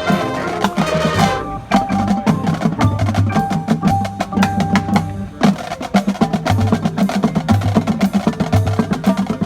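Marching band playing: a sustained brass chord dies away about a second and a half in, giving way to a busy percussion passage of rapid drum strokes over held low notes.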